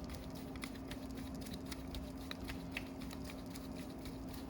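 Faint, irregular small clicks of a hand tool working the bolts of a carburetor float bowl as they are screwed in and snugged down, over a steady low hum.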